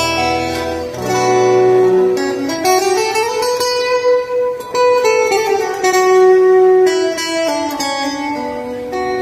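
Acoustic guitar playing an instrumental passage on its own, a picked melody of held notes, one of which slides up about three seconds in and holds for a couple of seconds.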